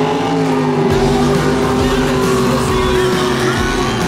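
Background music laid over the engine noise of racing jet boats accelerating.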